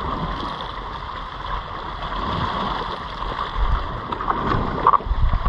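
Steady wash of sea water with wind on the microphone, and a few low bumps near the end.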